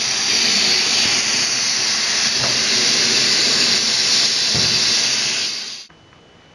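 Air hissing out of an air compressor tank's opened drain valve, blowing out the water and rust condensate collected inside. The hiss is loud and steady, then cuts off abruptly near the end.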